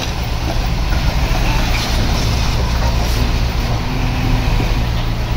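Diesel engine of heavy earthmoving machinery running steadily under work, with a constant low drone.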